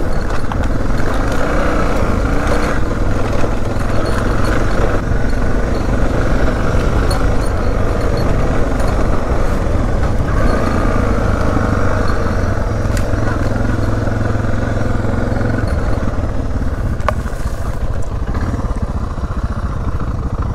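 Off-road motorcycle engine running as the bike rides along a dirt trail, its note changing every few seconds.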